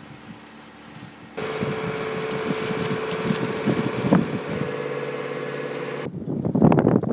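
Outdoor wind noise on the microphone, with a steady machine hum through the middle. The sound changes abruptly twice: quieter at first, then the hum from about a second and a half in, then gusty buffeting of the microphone near the end.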